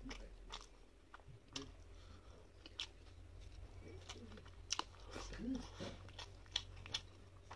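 Close-up eating sounds of a mouthful of rice and fish curry being chewed, with scattered sharp wet mouth clicks and smacks, a few of them louder in the second half, over a steady low hum.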